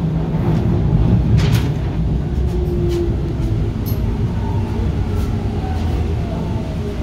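Bombardier T1 subway train running on the rails: a steady low rumble with a few sharp clicks from the wheels and track, and a faint falling whine in the last few seconds.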